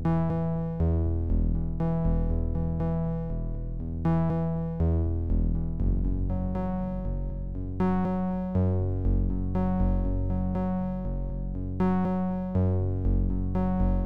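Background instrumental music: keyboard-like notes struck and fading, over a bass line that changes about every second.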